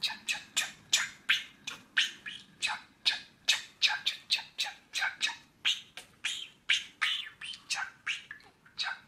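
Male budgerigar chattering without pause, repeating his own name as 'chap-chap-chappy' in short, quick calls at about three a second.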